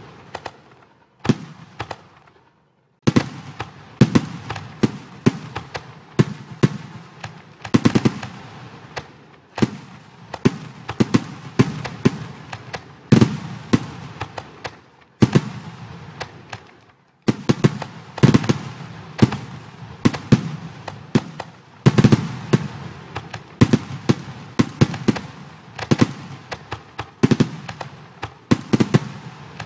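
Fireworks sound effects from a computer fireworks simulation: a dense, irregular run of sharp bangs and crackles, with a brief lull about two seconds in and another shorter one around seventeen seconds.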